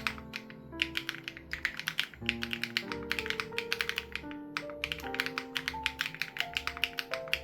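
Fast typing on an SPM AL87B mechanical keyboard with BSUN Raw switches and its sound-dampening foam removed, keystrokes coming in three quick bursts with short pauses between. Soft background music with held notes plays underneath.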